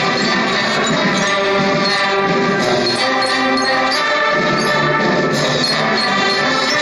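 Orchestral music with brass instruments, playing steadily.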